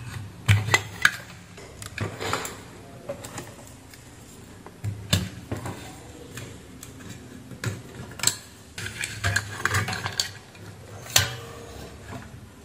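Irregular clicks, knocks and light clatter of an inverter welding machine's circuit board, plastic wire connectors and metal frame being handled on a bench, a few sharper knocks standing out.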